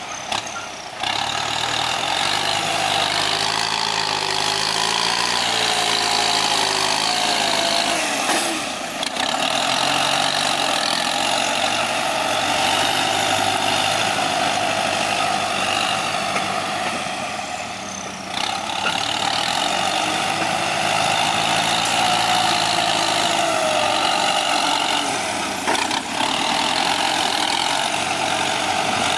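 Kubota M9540 tractor's four-cylinder diesel engine running under load as its front blade pushes and levels soil; the engine note wavers up and down and dips briefly several times.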